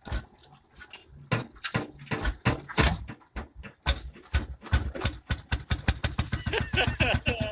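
Lanz Bulldog tractor's single-cylinder two-stroke hot-bulb engine starting up: a few uneven knocks that quicken into a fast, even chug as it catches and runs.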